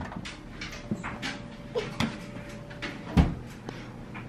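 Irregular light clicks and knocks of plastic toy bricks being handled, with a heavier thump about three seconds in.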